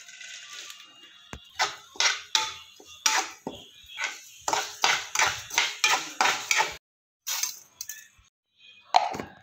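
Steel spoon scraping and stirring moong dal in a steel kadhai, a quick run of sharp strokes about two or three a second, with a short hiss at the start and a louder clatter near the end.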